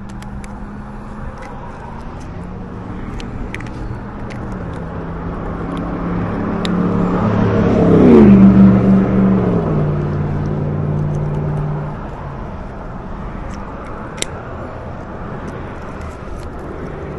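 A motor vehicle passing by: its engine grows louder over several seconds, peaks about eight seconds in as its pitch drops sharply, then fades out. A few faint clicks are heard along the way.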